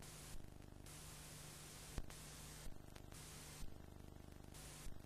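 Faint recording noise: a steady hiss over a low mains hum, with a sharp click about two seconds in and a few smaller ticks.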